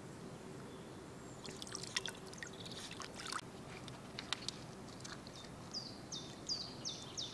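Small splashes and trickling of shallow river water as a dog wades through it, in the first half. Near the end a bird calls a run of short, high, falling notes, about two a second.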